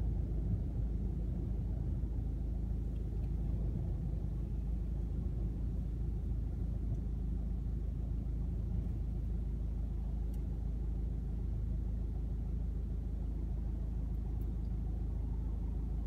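Strong wind buffeting a car, heard from inside the cabin as a steady low rumble.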